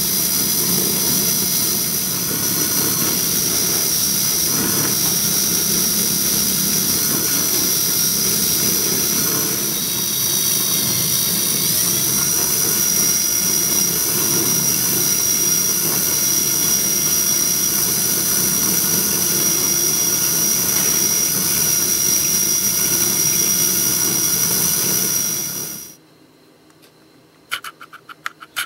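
Lathe running with a buffing wheel in its chuck, a steady motor whine with the rush of a small steel plane part being polished against the wheel. It cuts off suddenly near the end, followed by a few clicks.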